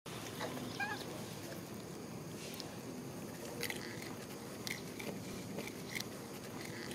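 Steady outdoor background hum with a short high squeak about a second in and a few sharp soft clicks spaced about a second apart in the second half.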